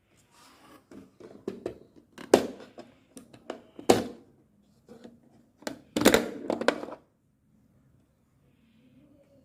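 Handling of a plastic wall clock while it is being started: a string of sharp plastic clicks and knocks with rustling between, the loudest clicks a little over two seconds in, about four seconds in, and a busy cluster around six seconds, then it goes quiet.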